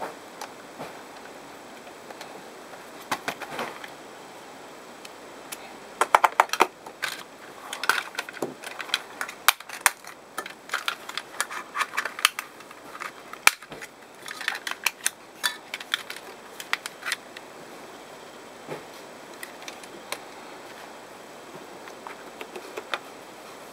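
Plastic clicks and snaps of a game controller's shell being pried and pulled apart by hand: a dense run of sharp clicks in the middle, with scattered clicks of tools and plastic handling before and after.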